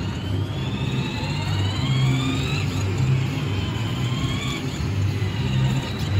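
Battery-powered ride-on toy jeep running, its electric drive motors whining and rising in pitch several times over a low rolling rumble of its plastic wheels on a tiled floor.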